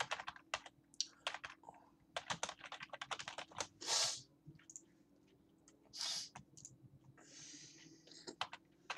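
Typing on a computer keyboard: irregular runs of key clicks with a pause of a second or so in the middle, and two short hisses among them.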